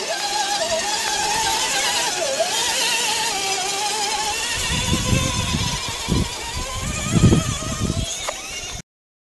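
Electric motor and gearbox of a scale RC crawler whining, the pitch wavering up and down with the throttle as it churns through mud. From about halfway, low rumbling bursts come in, and the sound cuts off suddenly near the end.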